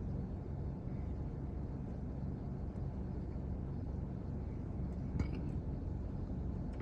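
Steady low hum and rumble inside a parked car's cabin, with one faint short click about five seconds in.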